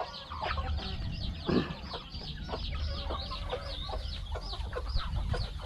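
Village chickens clucking in a pen, with a steady run of high, short, falling peeps repeated about three times a second; one louder, lower cluck about a second and a half in.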